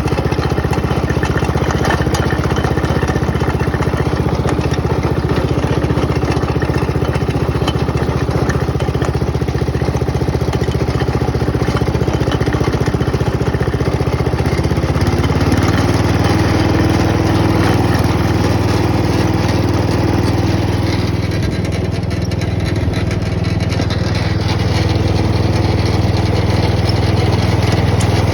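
Hot-rodded lawn mower's small engine running steadily. Its note changes about halfway through.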